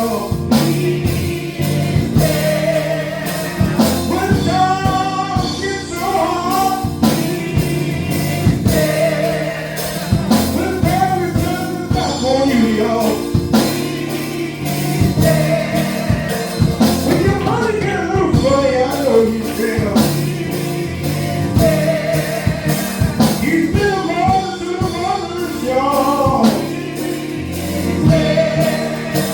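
Live gospel song in church: voices singing over a band with a steady beat.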